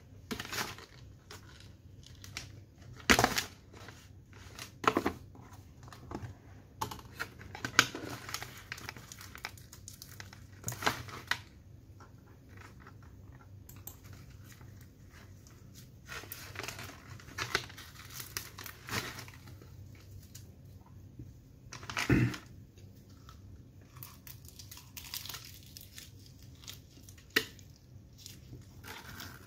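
Close-miked crackling and tearing of flaky puff-pastry burekas being handled and pulled apart, with crinkling of the paper and foil tray, in irregular sharp bursts. A bite and chewing come near the end.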